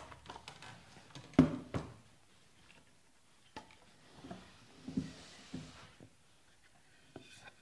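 Scattered wooden knocks and light clatter as cut pieces of timber are handled and set down on a table saw, the loudest knock about a second and a half in; no motor is running.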